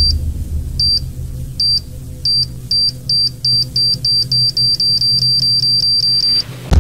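High-pitched electronic beeps that come faster and faster until they run almost together, like a countdown timer, over a steady low droning music bed. A loud blast cuts in right at the end.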